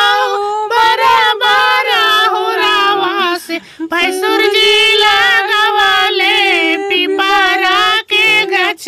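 A high-pitched voice singing a folk song in long, wavering held notes, with a brief pause about three and a half seconds in.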